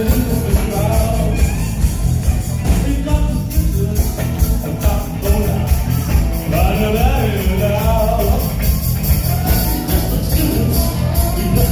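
Live rock music from a band on electric guitars and keyboards, with a lead vocalist singing into a handheld microphone over a steady beat.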